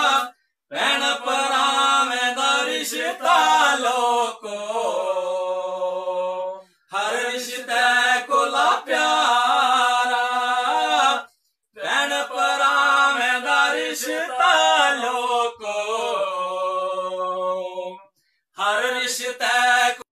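Male voice singing a Dogri folk song in long melodic phrases with held notes, broken by short pauses for breath.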